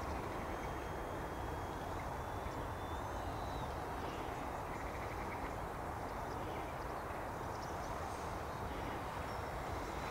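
Electric ducted-fan model jet (Arrows Hobby BAE Hawk) whining faintly at a distance, a thin high tone that slides slowly down, over a steady low background rumble.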